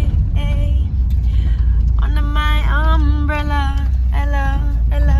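Steady low rumble of road and engine noise inside a moving car's cabin, with a voice heard in a few drawn-out, pitched phrases over it.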